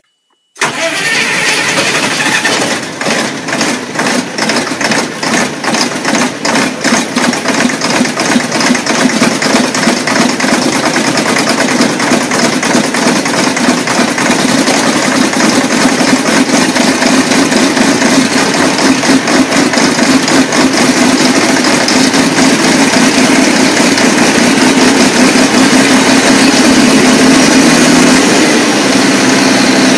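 An engine running from a cold start. It fires unevenly at first with separate knocks for several seconds, then settles into a fast, even run that picks up slightly near the end.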